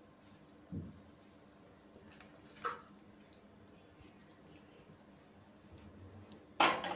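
A steel spoon scooping an oily tempering out of a pan onto rice in a steel plate: faint wet scraping with a soft knock about a second in, and a louder, short scrape or clatter near the end.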